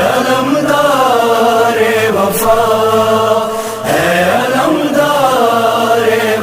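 A voice chanting a noha, an Urdu Shia devotional lament, in long held, wavering notes: about three drawn-out phrases, breaking about two and four seconds in.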